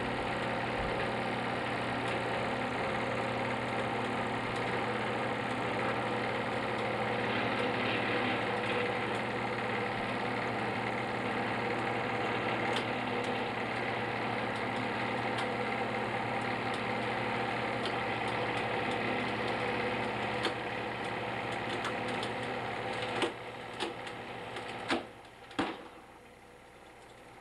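A slow-pull test rig's motor runs steadily while drawing a rescue toboggan end to end under load. Several sharp cracks come in the last few seconds, then the motor sound drops away near the end.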